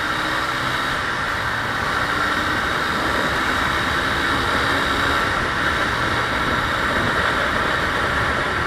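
Motorcycle riding under hard throttle: a steady engine drone under heavy wind and road noise on the rider's microphone.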